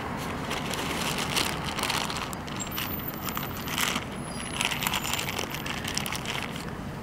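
Rustling and crinkling in several short bursts as a backpack and a clear plastic zipper bag are rummaged through by hand, over a steady hum of street traffic.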